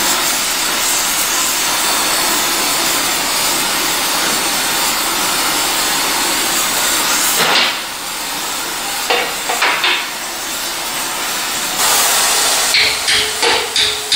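Gas torch burning with a steady hiss while a pipe joint on a steel tank is brazed. The hiss eases off a little about halfway through, with a couple of knocks, and a run of sharp, evenly spaced taps comes in near the end.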